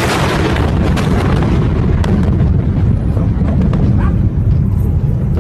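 Huge chemical explosion: a sudden sharp blast right at the start, followed by a loud, heavy rumble that carries on without letting up.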